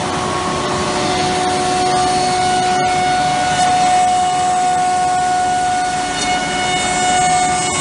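Cosmec Conquest 715 flat-table CNC router running: a steady, loud machine noise with a sustained high whine.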